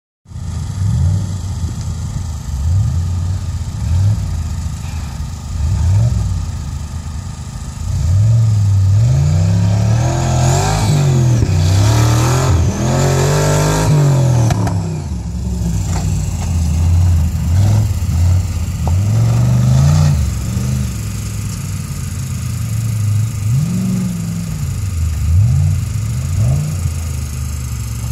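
Engine of a competition off-road four-wheel drive revving hard and backing off over and over as it drives a rough course, the pitch rising and falling. The revving is loudest through the middle stretch.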